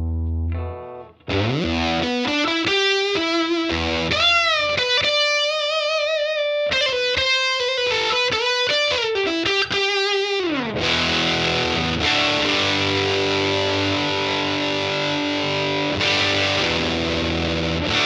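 Electric guitar played through a Satellite Amplifiers White JFET-driver overdrive pedal into a Fender Princeton amp. After a short pause it slides up into single-note lead phrases with a bent, wavering held note, slides down about ten seconds in, then plays overdriven chords that ring on.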